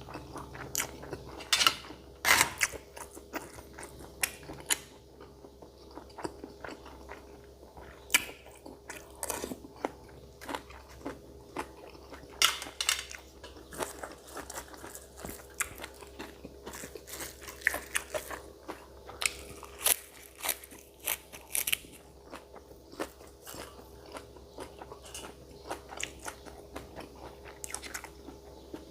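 Close-miked eating: a person biting and chewing a spicy boiled beef-foot salad, with irregular crunchy, wet clicks from the mouth.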